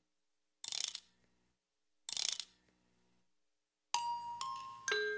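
A music box being wound: two short bursts of ratchet clicking from the winding mechanism. About four seconds in, its steel comb starts plucking a slow melody, single notes ringing and fading one after another.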